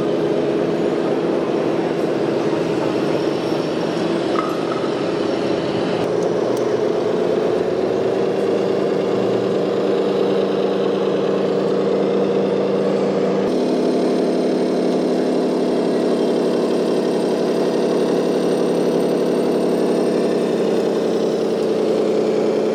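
Radio-controlled model vehicles' motors running with a steady hum of several tones. The pitch steps to new levels a few times, abruptly about six and thirteen seconds in.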